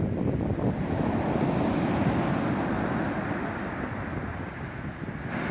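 Sea surf washing on the beach, with wind buffeting the microphone: a steady, rushing noise.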